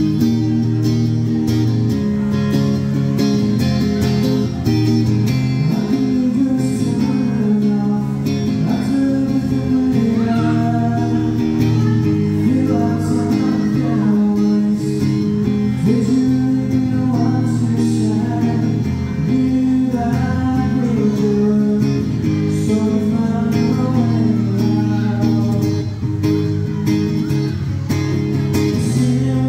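Electro-acoustic guitar strummed steadily, with a man singing over it: a solo live performance of a song.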